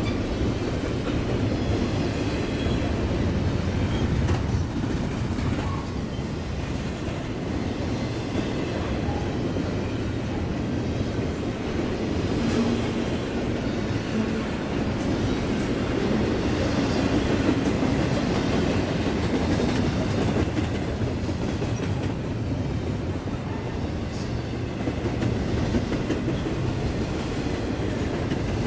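Double-stack intermodal container train rolling past: a steady low rumble of steel wheels on rail and well cars, with faint occasional clicks.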